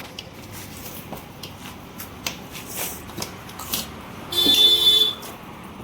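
Scattered light clicks and taps, then a loud buzzing horn tone about four seconds in that lasts about a second.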